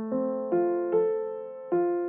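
Gentle keyboard music: a slow melody of single piano-like notes, each struck and left to fade, a new one about every half second.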